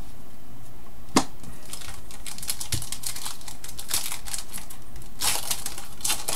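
Foil wrapper of a Panini Elite basketball card pack being torn open and crinkled by hand: a sharp tick about a second in, then a dense run of crackling from about two and a half seconds on.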